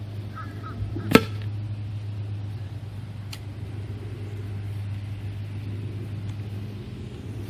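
A steady low mechanical hum with one sharp click about a second in and a fainter click a couple of seconds later.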